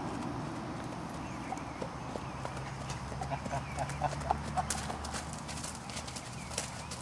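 A horse's hooves beating a quick, even rhythm on grassy dirt ground as it moves along under a rider.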